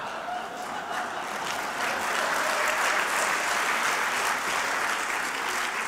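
Audience applauding, swelling over the first couple of seconds and holding steady before easing slightly near the end.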